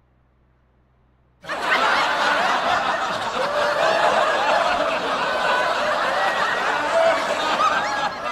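Laughter sound effect: several people laughing together, very loud. It starts suddenly about a second and a half in.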